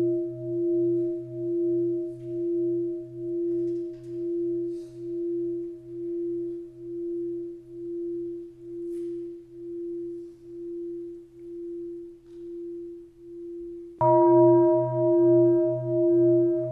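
A struck Buddhist bowl bell ringing on, its tone wavering slowly a little over once a second as it fades, then struck again about fourteen seconds in.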